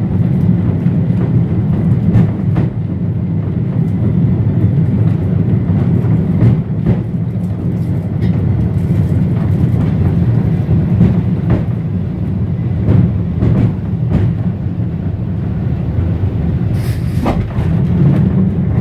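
Electric heritage tram of Birkenhead Corporation Tramways running along the track, heard from inside its wooden saloon: a steady low rumble with the wheels knocking over the rails every so often. There is a sharper clank near the end.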